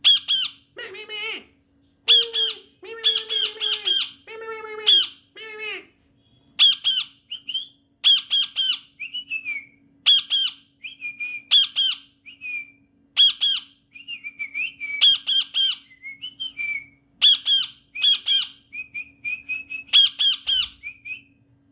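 A parrot squawking over and over, harsh high calls about once a second, with short whistled notes between the squawks in the second half.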